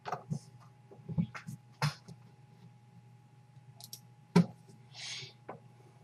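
A handful of scattered small clicks and taps, the loudest about four and a half seconds in, followed by a short hiss, over a steady low electrical hum.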